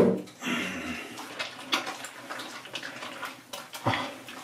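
Hands scrubbing and squeezing wet socks in soapy water in a sink: irregular sloshing and squelching. There is a sharp knock at the very start and a duller thud about four seconds in.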